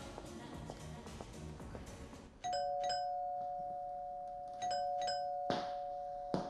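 Soft background music, then an electronic two-tone doorbell chime (ding-dong) about two and a half seconds in, rung again about two seconds later. Near the end come a few sharp footsteps on a hard floor.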